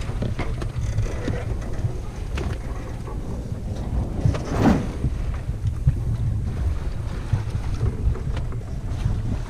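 Wind buffeting the microphone over the steady rush of water along the hull of a sailing yacht under way. There are a few light knocks, and a brief louder whoosh comes about four and a half seconds in.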